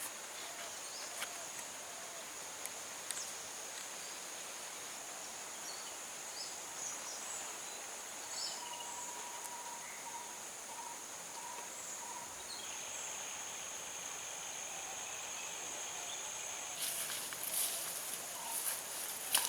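Rural outdoor ambience: a steady high insect drone with scattered short bird chirps, and a second insect tone joining about two-thirds of the way through. Near the end, a crackly rustling starts up.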